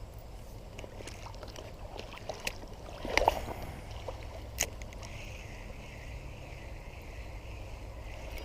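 Creek water running and sloshing in a shallow riffle, with a few sharp clicks and knocks, the loudest about three seconds in.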